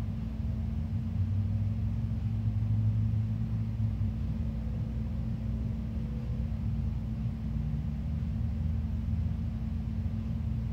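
Steady low background rumble with a constant hum, swelling slightly for a few seconds about a second in.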